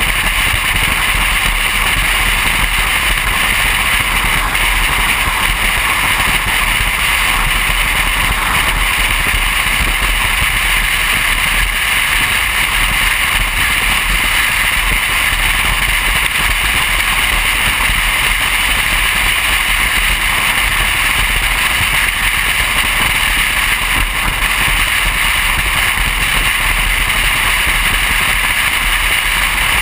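Steady rush of wind and road noise from a car driving at highway speed.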